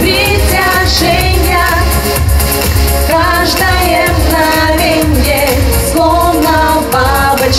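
Two women singing a pop song into handheld microphones over a backing track with a steady bass beat.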